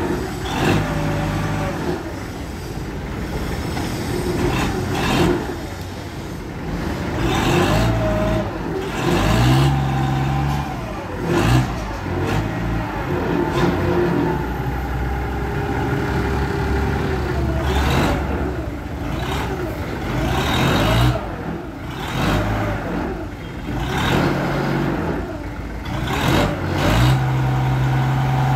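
Engine of a large forklift revving up and down repeatedly while its mast lifts the forks. It settles into a steady, louder, higher speed near the end.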